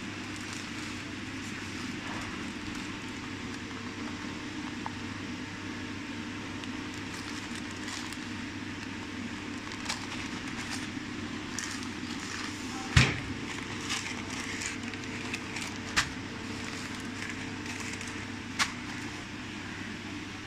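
Continuous band sealer with its conveyor running: a steady motor hum, broken by scattered clicks and knocks as filled plastic bags are handled, the loudest a sharp knock about two-thirds of the way through.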